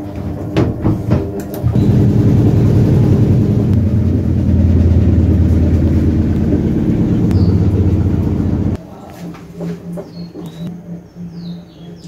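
Haier top-loading automatic washing machine on its spin cycle, draining the detergent water: the drum spinning with a loud, steady rumble that drops off abruptly about nine seconds in to a quieter hum.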